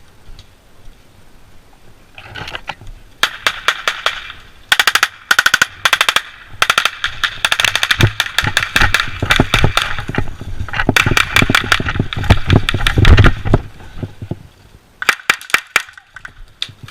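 Airsoft guns firing rapid full-auto bursts, strings of quick sharp snaps with short gaps between them. The firing stops about 13 seconds in, and a few more short bursts come near the end.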